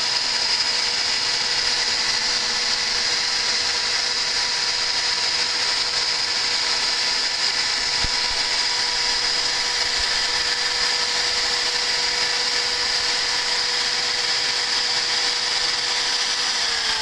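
CNC router spindle running at a steady high speed with a constant high whine over a hiss, while engraving a logo into a laminate floor plank.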